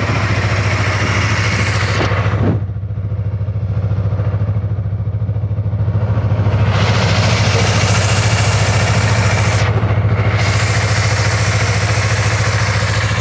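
Yamaha MT-03's 321 cc liquid-cooled parallel-twin engine idling steadily just after a cold start, the engine still cold and sounding normal.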